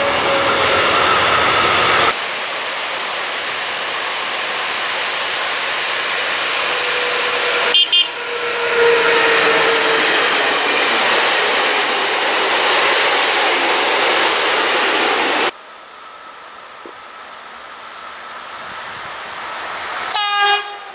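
Freight trains rolling past at trackside in several short clips, each cut off suddenly: a steady rush of wheels on rail with thin squealing tones now and then. Just before the end an approaching electric locomotive sounds a short horn.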